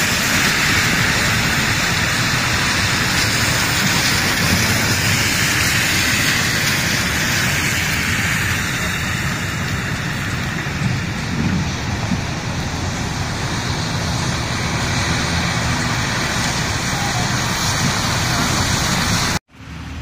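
Rain and car tyres on a wet city street as traffic passes, a steady hiss; it cuts off suddenly near the end.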